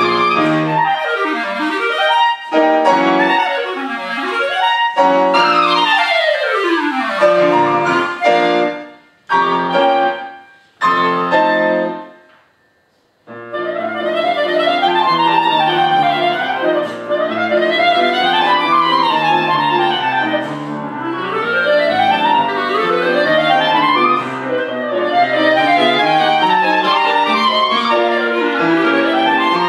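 Clarinet with piano accompaniment playing fast classical passagework. It opens with sweeping runs up and down, then a few short detached chords separated by breaks and a brief silence about twelve seconds in, then rapid running figures over the piano.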